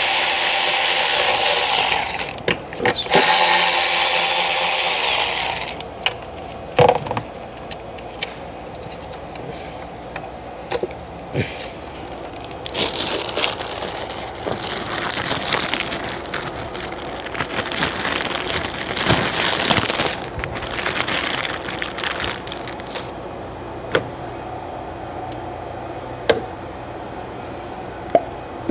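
Work sounds of an EVAP purge valve being changed. Two loud hissing bursts of about two seconds each come near the start, then scattered clicks and knocks and rustling as parts are handled.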